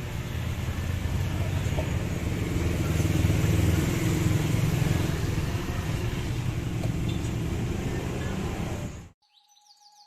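Road traffic noise with a vehicle engine rumbling close by, loudest in the middle, cut off suddenly near the end.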